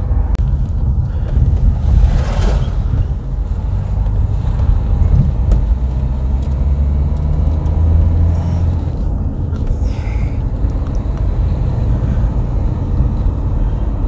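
Car engine and tyre rumble while driving, a steady low drone that grows stronger for a few seconds midway. Two brief rushes of noise come about two and a half and ten seconds in.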